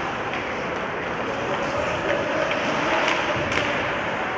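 Ice hockey game in play: skates scraping the ice and a few sharp clacks of sticks and puck, over the steady hum of the arena with faint voices.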